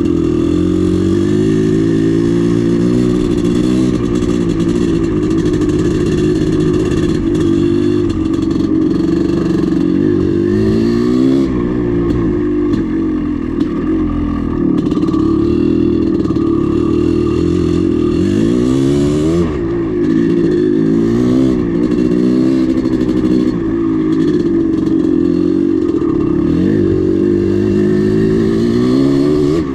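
Dirt bike engine running under way, its pitch rising and falling again and again as the throttle is opened and closed.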